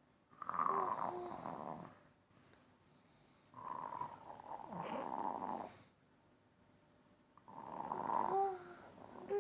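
A toddler imitating snoring: three drawn-out pretend snores, each lasting one to two seconds with pauses between, and a short fourth one at the very end.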